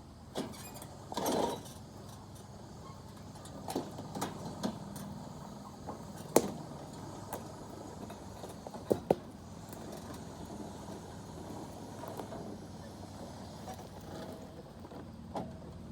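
Riding lawnmower engine running steadily in the background, with scattered sharp knocks and clicks over it, the loudest about six and nine seconds in.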